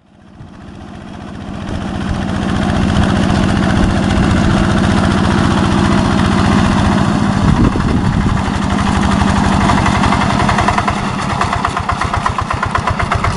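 Yanmar two-wheel hand tractor's single-cylinder diesel engine chugging steadily under load while plowing a flooded paddy. It fades in over the first couple of seconds, and its fast beat becomes more distinct near the end.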